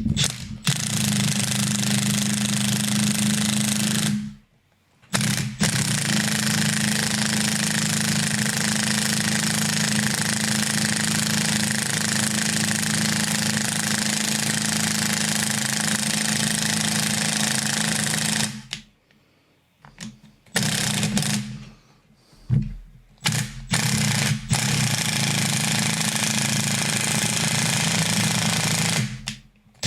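Impact wrench hammering as it turns a threaded rod that draws a new rear bush into a Mazda MX-5's wishbone. It runs in two long bursts, then several short bursts with pauses and a final long run.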